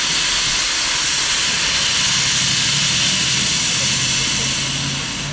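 Steady loud hiss of steam venting from the front of the standing BR 01 Pacific steam locomotive 01 202, easing off in the last second. A faint low hum comes in about two seconds in.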